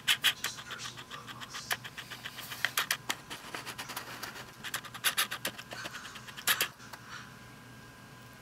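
Argentine black and white tegu's claws clicking and scratching on a hardwood floor as it walks, a quick irregular run of sharp clicks that dies away about seven seconds in.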